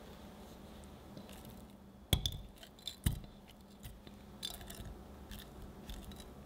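Watermelon cubes tipped from a glass measuring jug into a plastic blender cup. Two sharp knocks about two and three seconds in, followed by several lighter taps and wet knocks as the pieces settle.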